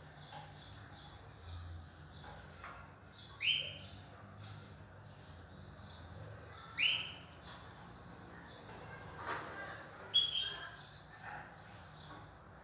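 Canaries chirping: scattered short, high calls with pauses between, five louder ones, a few sweeping sharply down in pitch.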